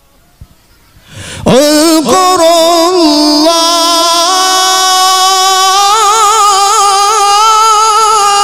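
A male qari reciting the Quran in the melodic mujawwad style. After a short pause he comes in about a second in and holds one long, loud note with a wavering vibrato, rising slightly in pitch midway.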